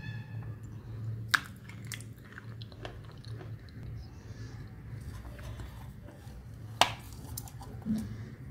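Close-up chewing of a dry, crumbly, powder-coated solid, with small crackles throughout and two sharp crunches, one about a second in and one near seven seconds, over a steady low hum.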